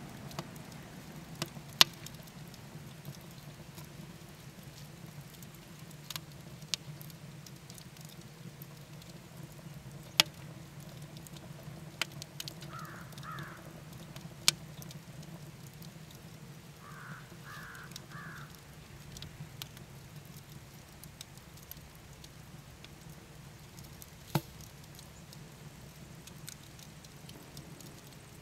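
Wood fire crackling in a cast aluminum chiminea: sharp pops every few seconds, the loudest about two, ten and twenty-four seconds in, over a steady low hum.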